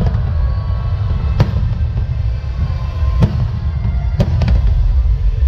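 Aerial firework shells bursting: a sharp bang about a second and a half in, another about three seconds in, and a quick cluster of bangs near the end, over a steady low rumble.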